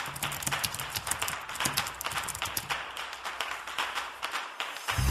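Typing on a computer keyboard: quick, uneven key clicks, several a second.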